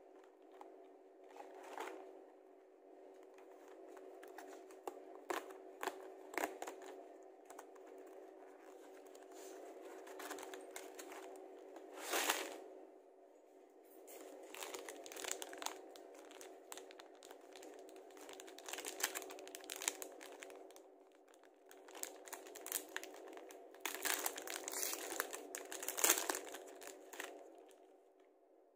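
Plastic snack wrappers of Orion Choco-Pie packs crinkling and tearing as the box is emptied and one pie is unwrapped: many short crackles, with louder bursts about twelve seconds in and again near the end. A steady low hum runs underneath.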